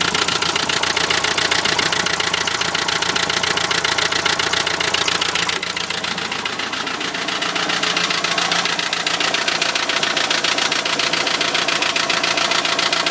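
Renault Trafic van's 2.0 dCi M9R diesel engine idling with a fast, steady knocking rattle, which the owner suspects comes from an injector. The sound dips briefly quieter about six seconds in.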